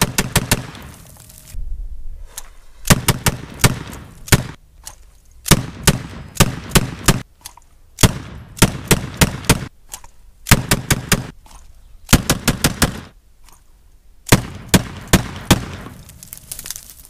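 1851 Navy single-action revolver fanned with black-powder .38 Special loads. It fires strings of about five very rapid shots, each string over in under a second, repeated several times with short gaps between them.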